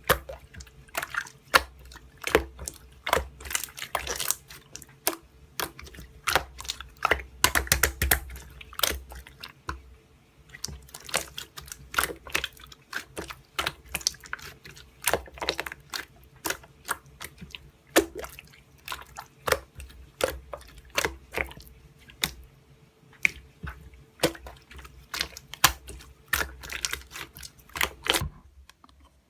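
Slime being squeezed and poked by hand, making irregular sticky clicks and wet pops several times a second. A faint steady hum runs underneath and stops about a second before the end.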